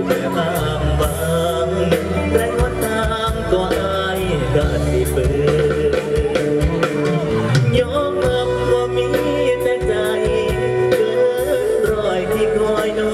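A singer singing into a microphone over a live band with drums, amplified through a PA: an Isan luk thung song performed on stage.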